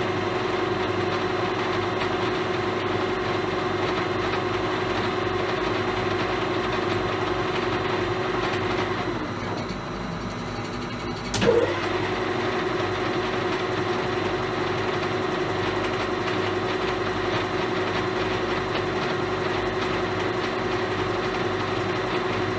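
Holbrook T13 lathe headstock running at its 600 rpm top speed through the friction drive clutch: a steady mechanical hum with a whine. About nine seconds in the whine fades and the sound drops. Some two and a half seconds later there is a sharp clack and the whine comes straight back, as the clutch is let out and thrown back in with its lever.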